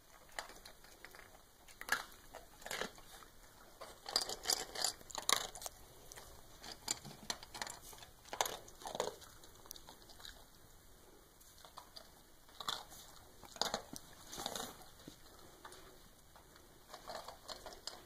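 A puppy and a larger dog playing with plush toys: irregular scuffling, rustling and soft chewing and mouthing sounds, in scattered bursts.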